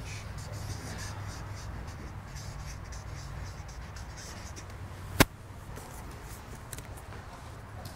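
Marker pen writing on a large paper sheet: faint scratchy strokes as a word is written out, with one sharp click about five seconds in.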